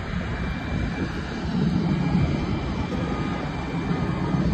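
A steady low rumble of jet aircraft engine noise, with a faint thin whine above it.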